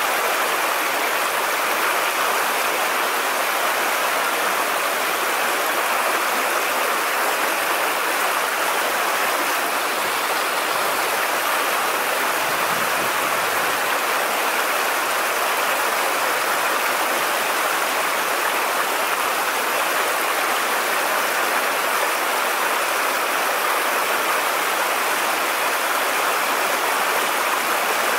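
Steady rush of flowing stream water, an even hiss with no distinct splashes or other events.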